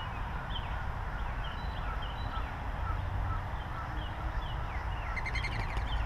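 Small birds chirping: a steady run of short, repeated chirps, with a quick trill of rapid notes near the end, over a low steady outdoor rumble.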